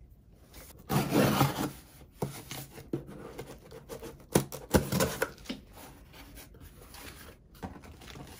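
A package being cut open with scissors and pulled apart: irregular rasping, scraping strokes, the loudest about a second in, with a few sharp clicks and snaps around the middle.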